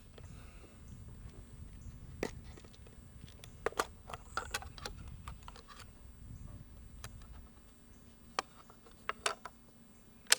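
Scattered light clicks and taps, about nine of them, some in quick pairs, over a low rumble that fades out about seven seconds in.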